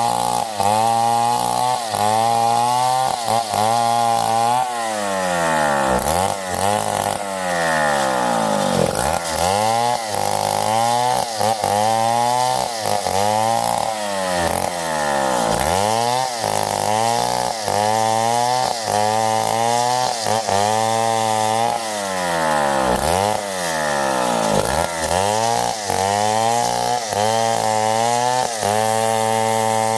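Stihl 070 two-stroke chainsaw cutting wood, its engine pitch dipping and recovering about once a second as the chain bites and frees.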